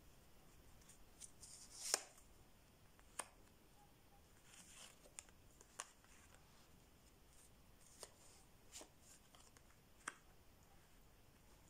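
Tarot cards being handled and laid down on a table: a few sharp card slaps and snaps spaced a second or two apart, the loudest about two seconds in, with brief rustles of the cards between them.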